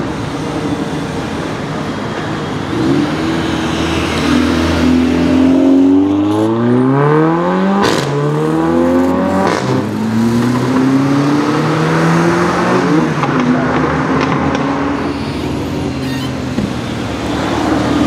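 Mercedes-AMG A45 Edition 1's turbocharged four-cylinder through a custom aftermarket exhaust, revving and accelerating, its note rising through the gears. About eight seconds in, the pitch drops with a sharp crack on the upshift, then climbs again.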